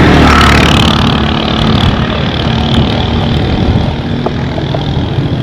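A motor vehicle's engine running close by, a steady low hum with a louder swell of noise in the first second.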